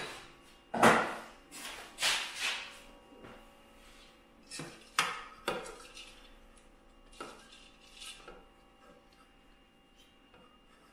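Metal pot clattering and a wooden spoon scraping cooked quinoa out of a stainless steel pot into a Thermomix's steel mixing bowl. A run of sharp clanks comes in the first half, the loudest about a second in, then quieter scraping.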